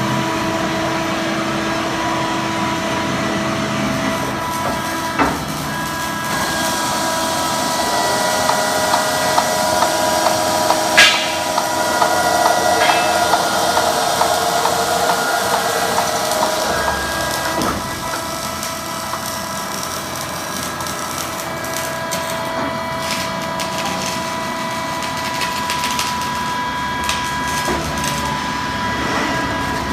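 Ocean Machinery CNC beam drill line running: a steady machine whine made of several held tones, with scattered sharp knocks and clatters, the loudest about eleven seconds in.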